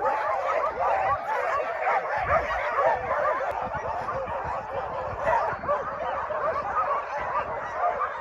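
A large group of Alaskan husky sled dogs yipping, whining and barking all at once: a continuous chorus of many overlapping high calls.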